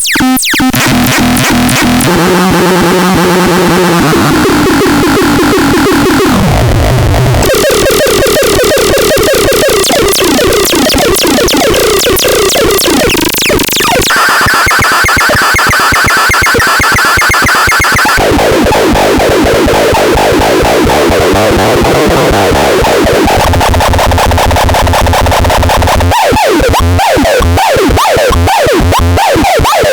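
Loud, harsh electronic synthesizer sounds, dense buzzing tones and noise that switch abruptly to a new sound every few seconds.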